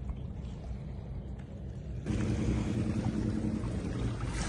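Boat motor running with a steady low hum under wind and water noise, which jumps louder about two seconds in.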